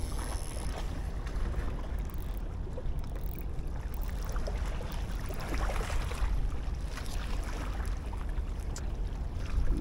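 Steady low rumble of wind buffeting the microphone by open water, with a faint wash of water and a few light ticks.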